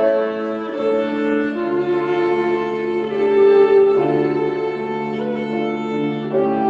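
Instrumental music with slow, sustained chords that change every second or two, with a bowed-string-like sound.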